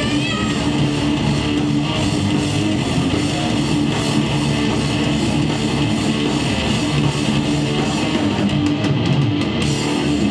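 Heavy metal band playing live: distorted electric guitars, bass and drum kit at full volume, heard from within the audience.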